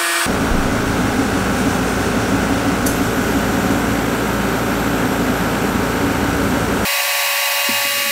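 Steady whooshing hum of a CO2 laser cutter at work, its exhaust blower and air-assist compressor running while the head cuts a test pattern in cardboard. The low part of the noise cuts out about seven seconds in.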